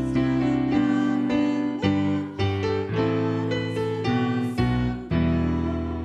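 Piano playing the accompaniment of a worship song, with chords struck one after another and left to ring.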